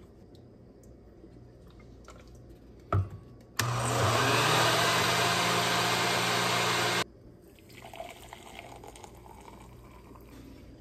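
Countertop blender with a glass jar blending coffee, its motor rising in pitch as it spins up and then running steadily for about three and a half seconds before cutting off sharply. A sharp knock comes just before it starts, and faint pouring of the frothy coffee into a ceramic mug follows near the end.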